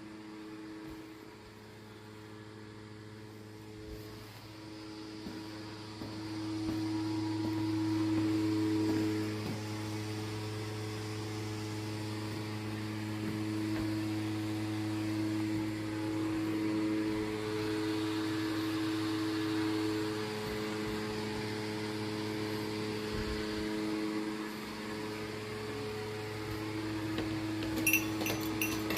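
A steady mechanical hum with a low, even pitch that swells and fades slightly. Sharp clinking ticks begin near the end.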